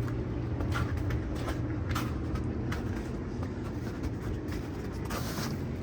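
A steady low rumble, like a motor or engine running, with scattered short crunches or rustles over it.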